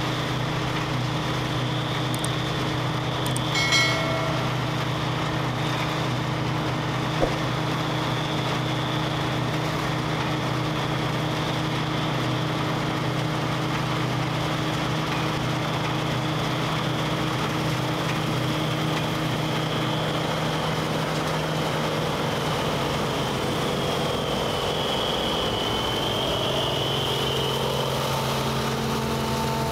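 Claas Dominator 98 SL combine harvester's diesel engine and threshing machinery running steadily, with a short high tone about four seconds in and a single click a few seconds later. The engine note shifts slightly near the end.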